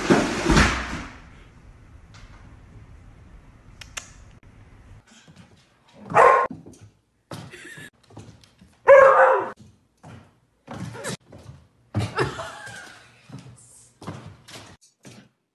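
A plastic laundry basket sliding and clattering down wooden stairs, a noisy burst in the first second. Later, three short animal calls and scattered thuds and taps on a hardwood floor.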